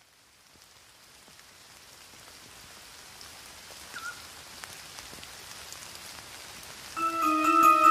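Light rain pattering, an even hiss with scattered drips that fades in from silence and slowly grows louder, with a brief high squeak about four seconds in. Near the end, music with a melody of held notes starts and is louder than the rain.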